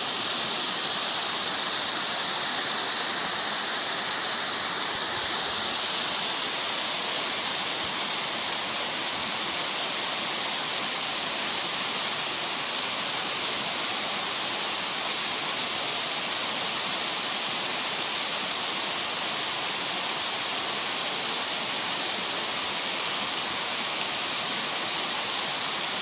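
Purling Brook Falls, a tall waterfall plunging over a cliff, rushing steadily: an even, unbroken noise of falling water.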